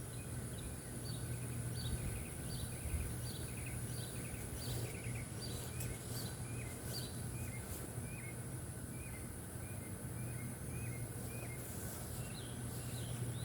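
A bird repeating short chirping notes, about two a second, over a steady high insect drone.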